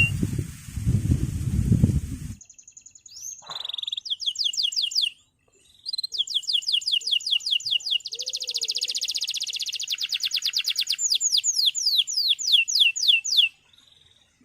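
Male canary singing fast trills of rapidly repeated sweeping high notes, in several runs, starting about three seconds in and stopping shortly before the end. The first two seconds hold a loud low rumbling noise.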